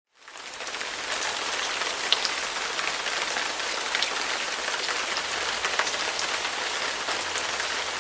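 Steady rain falling, with faint scattered drop ticks in the hiss; it fades in just after the start.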